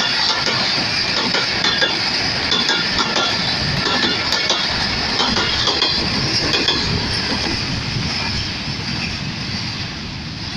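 Passenger coaches of an express train rolling past on the near track: steady wheel-on-rail running noise with many sharp clicks from the wheels, fading over the last couple of seconds as the end of the train goes by.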